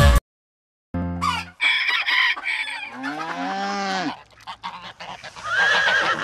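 A run of cartoon farm-animal sound effects after a brief gap. First comes a burst of honking calls. Then a cow gives one low moo that rises and falls, and near the end a horse whinnies with a wavering cry.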